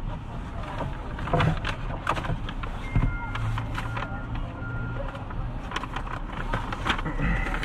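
A seat belt being released and hands rummaging in a car's dashboard compartment, giving a string of small clicks and knocks over a steady low hum. Three short electronic beeps sound in the middle.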